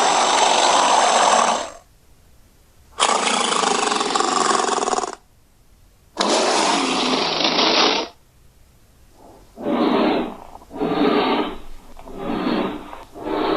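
Custom-made giant gorilla vocal effects: three long, harsh roars of about two seconds each, then a run of four short grunts in the second half.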